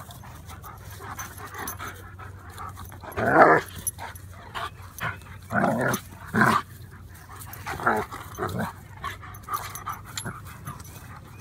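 A German Shepherd and a yellow Labrador play-fighting, with a handful of short growls, the loudest about three seconds in, and panting between them.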